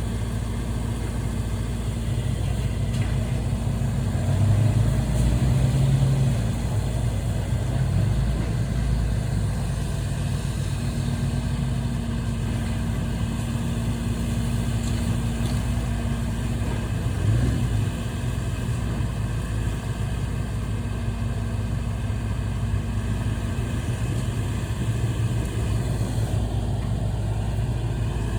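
An engine running steadily, a little louder about four seconds in.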